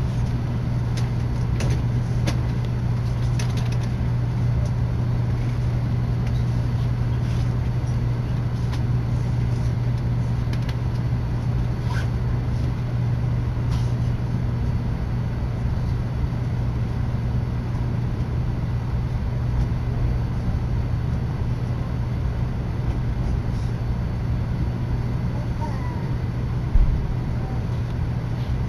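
Steady low hum inside a Tokaido Shinkansen carriage, with scattered faint clicks and a single thump near the end.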